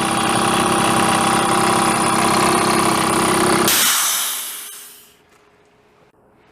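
BelAir electric air compressor running steadily as it pumps up its tank, then reaching its cut-out pressure of about 130 psi a little under four seconds in: it shuts off with a short hiss of air and the motor winds down.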